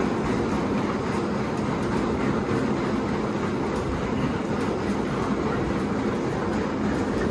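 Woodway curved manual treadmill running under a runner's feet: a steady rolling rumble and clatter from its slatted belt, with no motor.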